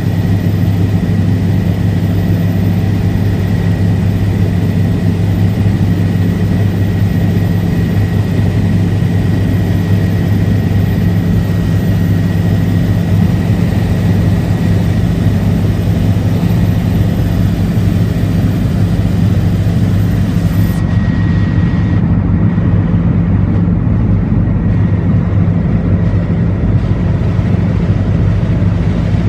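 Helicopter's engine and rotor running with a steady, loud drone, with a thin high whine that dies away about two-thirds of the way through.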